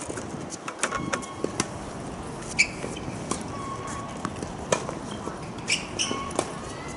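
Tennis balls being hit back and forth on an outdoor hard court: sharp pops of racket strings on ball and ball bounces, with a few short squeaks between them.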